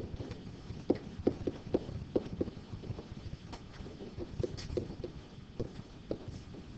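A pen knocking against a writing surface at an uneven pace, about two knocks a second, as handwriting is written stroke by stroke.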